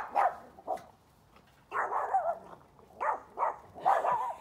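Farm dogs barking excitedly as they chase off a fox: a string of short barks with a longer one about halfway through.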